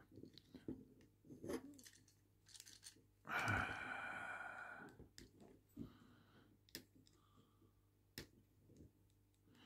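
Small plastic clicks and taps as a plastic upgrade-kit piece is pressed and dry-fitted onto a Transformers action figure's arm. About three seconds in there is a longer, soft hiss lasting under two seconds.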